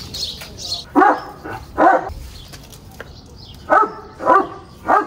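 A dog barking in short barks: two, then after a pause of about two seconds, three more in quick succession.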